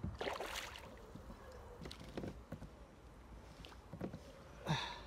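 Water splashing in three short bursts around a kayak while a hooked chub is played, over a low steady rumble.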